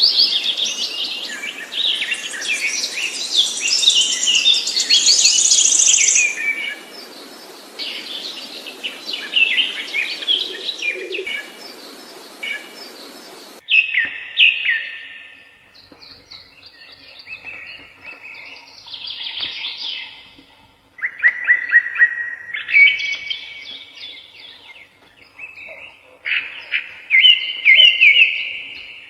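Songbirds singing in rapid chirps and trills. About 13 seconds in, the sound cuts abruptly to a cleaner recording of separate, somewhat lower song phrases.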